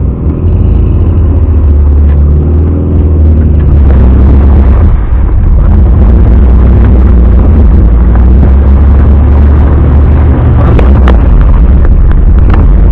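Suzuki Vitara's engine running loud at high revs under load, heard from inside the cabin, its pitch rising and falling in the first few seconds and then held steady. A few sharp knocks sound near the end.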